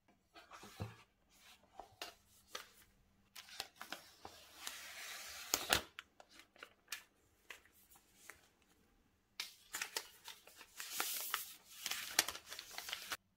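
Hands handling an iPad Pro's box and packaging: rustling and scraping in irregular bursts with sharp clicks and taps, breaking off suddenly near the end.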